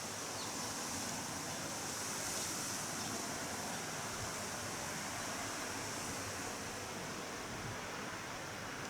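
Steady seaside wind and water ambience: an even hiss with no distinct events.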